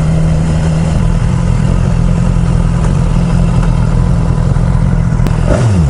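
BMW S 1000 XR's inline-four engine running steadily as the motorcycle rolls slowly at low revs, heard from the rider's seat; about five and a half seconds in, the engine note falls quickly as the bike slows.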